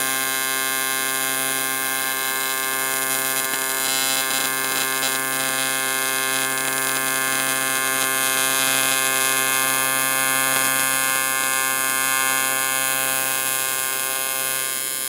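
AC TIG welding arc on a cast-aluminium cylinder head, a steady, even buzz with a hiss over it.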